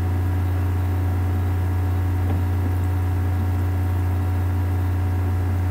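A steady low hum with faint, steady higher tones above it, unchanging throughout.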